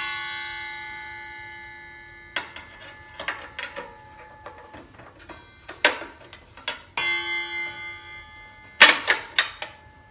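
Carbide table-saw blade knocked against the saw's steel table and ringing like a bell, twice: a long ring from the start fading over about two seconds, and a shorter one about seven seconds in. Lighter metal knocks and clicks of the blade being handled come between.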